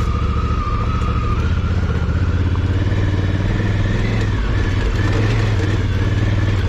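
Honda Africa Twin CRF1000L's parallel-twin engine running steadily at low, even revs as the motorcycle is ridden over rough dirt trail, with a brief dip about two-thirds of the way through.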